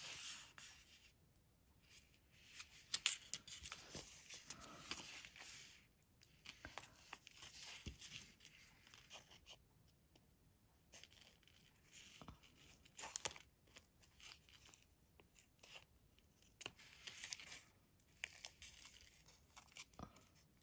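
Faint rustling and peeling of a roll of washi sticker tape being unrolled and handled, with scattered sharp snips of small scissors cutting pieces off the strip.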